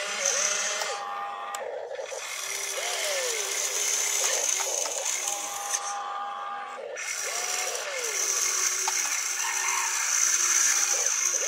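RC excavator's electric drive motors and plastic gearing whining and rattling as the boom swings and the bucket digs, the pitch rising and falling with each movement. A steady high whine cuts out twice for about a second and comes back.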